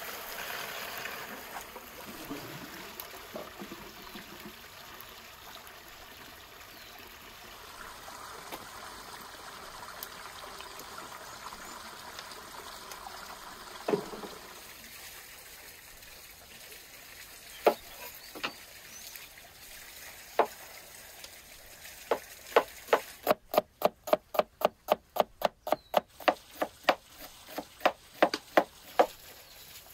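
Water pouring from a stone spring fountain's spout into its basin, a steady trickle and splash. In the second half a cleaver chops onion on a wooden board: sharp knocks, quickest at about four a second, then slower near the end.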